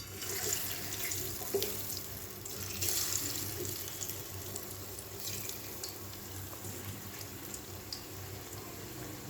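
Water running from a tap into a sink, a little louder for a moment about three seconds in.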